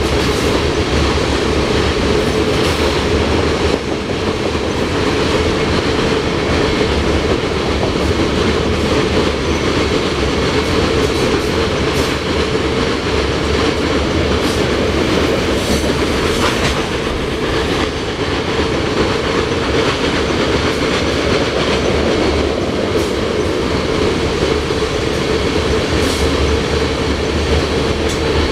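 Freight train of covered hopper cars rolling past at steady speed. Loud, continuous rumble of steel wheels on rail, with scattered sharp clicks as wheels cross rail joints.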